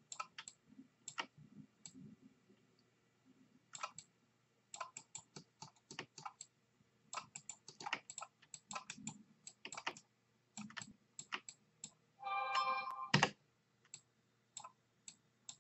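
Computer mouse and keyboard clicks, scattered and irregular, as a 3D modelling program is worked. A short buzzing tone sounds just after twelve seconds in.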